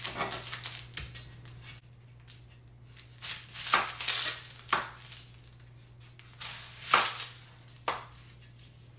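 Kitchen knife cutting and peeling the dry, papery skin off a yellow onion on a plastic cutting board: crisp crackling and rustling in several short bursts.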